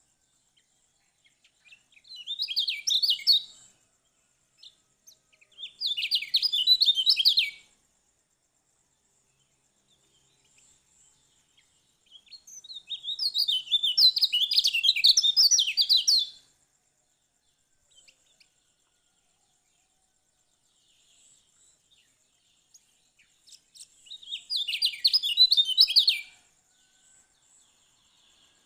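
Kecial kuning, a white-eye, singing in four bursts of rapid, high, twittering song. The third burst, about halfway through, is the longest.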